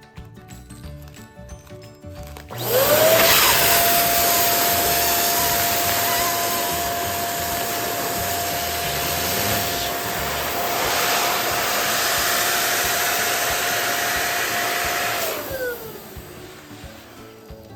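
Electric balloon pump running for about twelve seconds: a loud rush of air with a motor whine that climbs as it switches on, holds steady, then drops away as it switches off.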